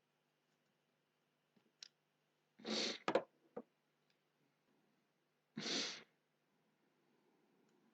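Two short, breathy puffs of air about three seconds apart, like sniffs or exhalations, with a few light clicks just after the first.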